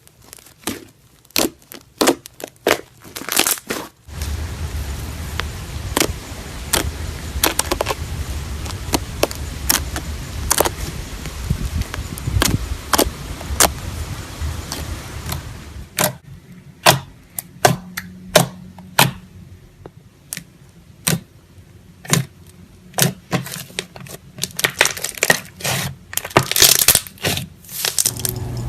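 Slime being squeezed and pressed by hand, giving sharp crackling clicks and pops at an uneven pace. From about four seconds in to about sixteen seconds a low hum runs under them.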